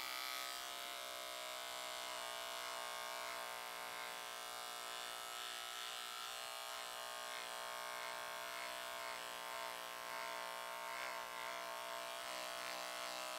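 Remington cordless beard trimmer running with a steady buzz while it trims hair along the nape of the neck.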